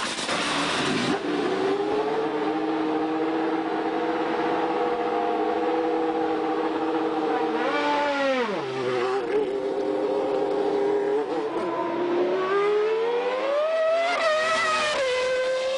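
Minardi two-seater Formula One car's engine running at high revs, its pitch dropping steeply about eight seconds in, then climbing again as the car accelerates.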